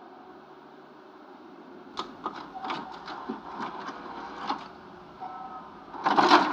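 Television static hiss with a run of sharp crackling clicks in the middle, then a short loud burst of static near the end.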